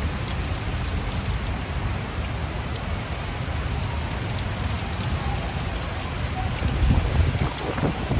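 Heavy monsoon rain pouring steadily onto a flat concrete rooftop and surrounding roofs, with a low rumble underneath that grows gustier and louder near the end.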